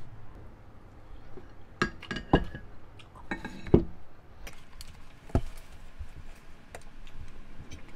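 Eating utensils clinking and scraping against ceramic and glass dishes as food is served onto a plate of rice. There is a cluster of sharp clinks, some briefly ringing, about two to four seconds in, and one more knock later.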